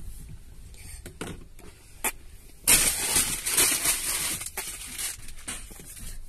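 Rustling and scraping close to the microphone: a few small clicks, then about three seconds in a loud, ragged rustle that lasts a couple of seconds and fades.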